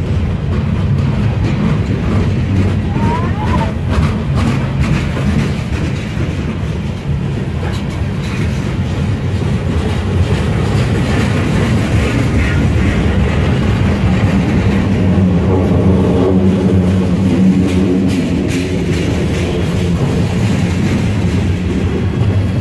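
CSX freight train's boxcars and hoppers rolling past close by: a steady heavy rumble of steel wheels on the rails, with faint clicks from the wheels.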